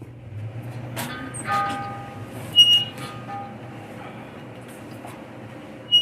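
Metal exhaust hardware and parts clinking and ringing as they are handled, over a steady low hum. There is a sharp clink about two and a half seconds in and another near the end.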